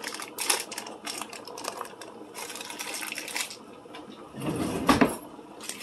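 Paper butter wrapper crinkling and rustling in quick crackles as the butter is unwrapped, followed about four and a half seconds in by a louder swishing thud from the pot.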